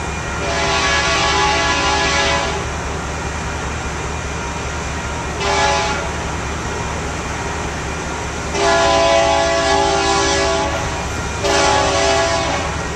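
Union Pacific freight locomotive's multi-note air horn sounding a series of blasts: a long one, a short one, then two long ones, over the steady low rumble of the approaching train.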